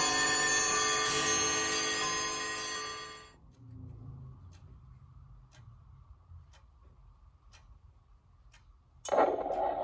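Background music for the first three seconds or so, cutting off suddenly. Then a truck-rim wall clock ticks faintly about once a second as its minute hand is turned up to the hour. Near the end the clock's built-in top-of-hour sound, a recorded Jake brake and air horn, starts suddenly and loudly.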